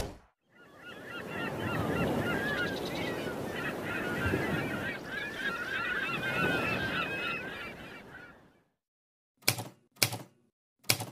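A flock of birds calling, many short honk-like calls overlapping one another for about eight seconds. After a pause come four short, sharp clicks near the end.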